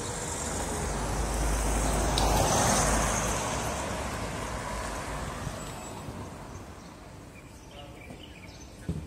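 Road traffic noise: a motor vehicle going past, swelling to its loudest about two and a half seconds in and then fading away.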